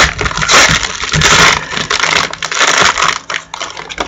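Trading-card pack wrapper being torn open and crinkled by hand, a loud dense crackling with many small clicks, then cards being handled.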